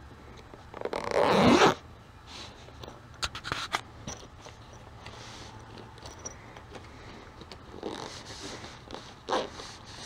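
Zipper on a soft fabric tool bag being pulled open by hand in short, halting runs, the longest and loudest about a second in, with scratchy rubbing between.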